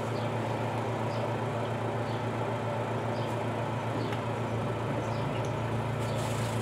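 Praxis twin-tub washing machine running: a steady low motor hum with faint, scattered ticks.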